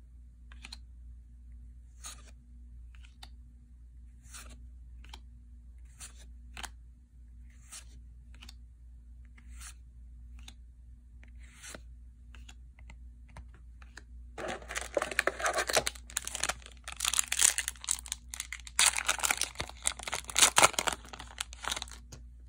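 Trading cards being flipped and slid one by one, a soft click about once a second. About two-thirds in comes a loud crinkling and tearing of a foil booster pack wrapper being ripped open, with a brief pause in the middle.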